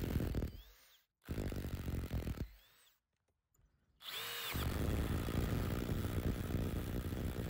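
Parkside Performance C3 cordless impact driver at its top settings (mode 4 and expert mode), hammering long screws into a wooden log with a rapid rattling. The hammering stops about a second in and comes back for about a second. After a short silence the motor spins up with a brief whine at about four seconds, then hammers steadily on.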